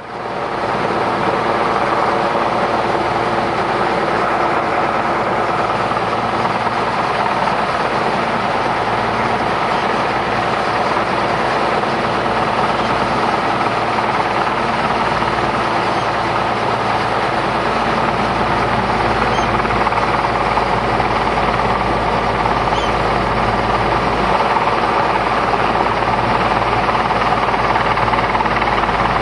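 Search-and-rescue helicopter hovering low over the sea during a winching exercise, its rotor and turbine engines giving a steady drone.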